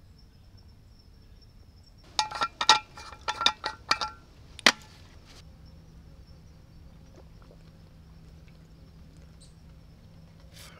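A quick run of bright metallic clinks with a ringing tone, ending in one sharp click, as a military-style canteen and its chained cap are handled and opened. A steady high insect chirr runs underneath.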